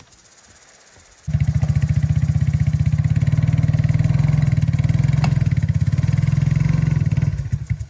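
A band sawmill's small gas engine running loud and steady with a fast, even pulse. It cuts in suddenly about a second in and dies away just before the end.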